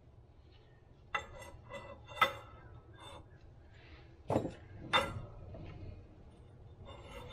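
Metal clinking and knocking as a square steel bar and hand tools are handled against the steel cover of an Eaton self-adjusting truck clutch. A run of light clinks about a second in peaks in a sharper clank a little after two seconds, and two more knocks come around four and five seconds in.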